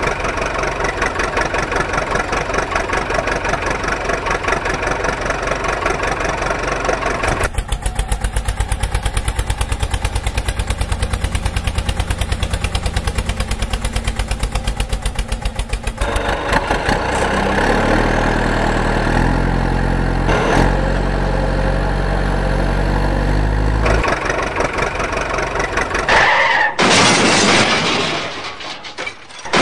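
Truck and tractor engine sound effects running throughout, changing character in stretches: a steady run, then a fast even pulsing, then a stretch that steps up and down in pitch. Near the end a loud crashing noise sounds as a truck topples over.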